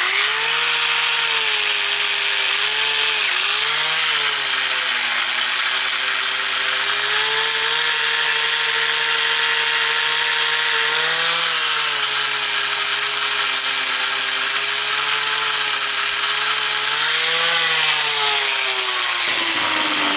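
Angle grinder with a wire cup brush running steadily as it scrubs an old adjustable spanner clean. Its pitch dips each time the brush is pressed onto the metal. Near the end the grinder is switched off and winds down.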